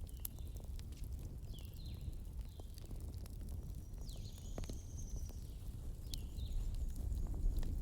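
Wood fire burning with a low steady rumble and scattered sharp crackles and pops. Several short high squeaks and a longer high whistle about four seconds in sound over it.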